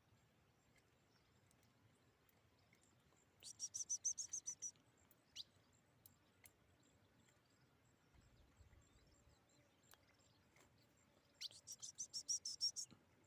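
A small bird gives two short, rapid chirping trills of quick repeated high notes, each a little over a second long and several seconds apart.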